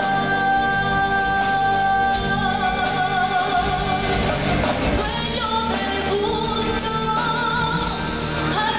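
Live rock band playing with a singer: one long held note for about two seconds, then more sung notes with vibrato, over guitar.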